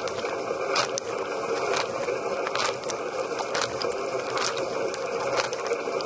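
Water spraying inside a running dishwasher, heard from within the tub: a steady hiss and splash, with a louder burst of spray about once a second as the rotating spray arm's jet sweeps past.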